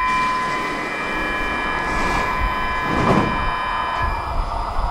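Stockholm metro train at the platform, with a steady high electrical whine of several tones. There is a short low thud about three seconds in, and near the end the whine gives way to a rushing rolling noise as the train gets moving.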